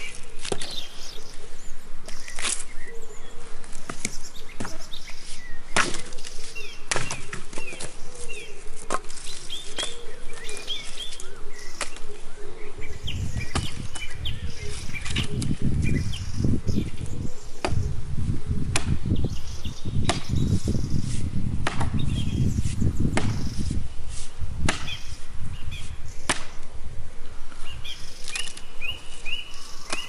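Axe chopping dry fallen branches, sharp blows about once a second, with birds chirping in the background. A low rumble joins in through the middle stretch.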